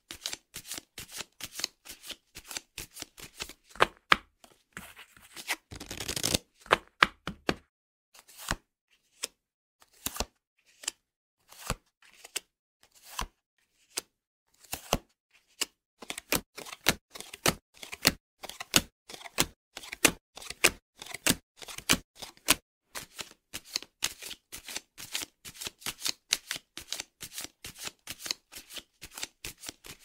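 Playing cards being handled: rapid crisp card clicks and snaps, with a short dense rustling burst about six seconds in. Between about 8 and 15 s there are only single snaps a second or so apart, and from about 16 s the fast clicking comes back.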